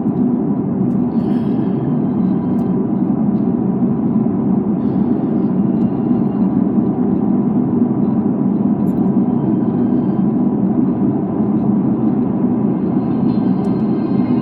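Steady road and engine noise heard inside a moving car's cabin, an even low rumble with no break.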